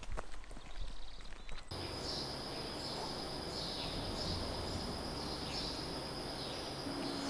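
A few scattered footstep-like knocks, then, after an abrupt change about two seconds in, a steady high hiss with a soft high chirp repeating every second or so.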